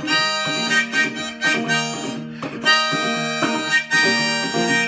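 Harmonica played in a neck rack, a melody of held notes, over a resonator guitar accompaniment: an instrumental break with no singing.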